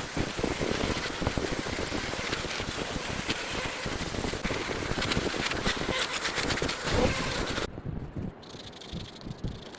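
Rapid, rattling scraping of a tool working wood, which stops abruptly about three-quarters of the way through, leaving a few softer knocks.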